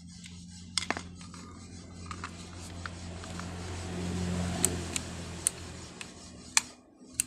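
Sharp clicks and taps of a screwdriver and hands on an angle grinder's open plastic switch housing as the switch is reassembled, over a low steady hum that stops shortly before the end.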